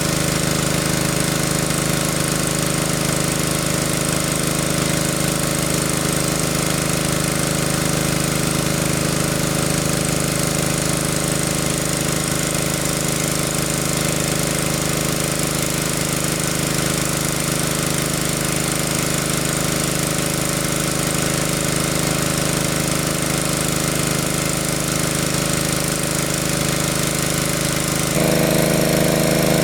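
Engine driving a large water pump, running steadily. Near the end the running note shifts and gets louder.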